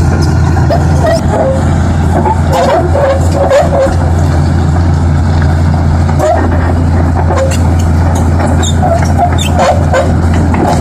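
Heavy truck engine running steadily, with short yelping calls over it now and then.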